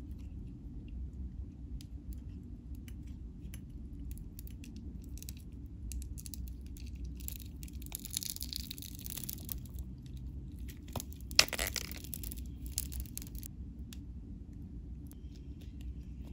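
Fingernails picking at and breaking the granular, glittery crust of an L.O.L. Surprise capsule, giving scattered crunchy crackles. The crackles thicken into dense crunching in the middle, with one sharp crack about eleven seconds in, all over a steady low hum.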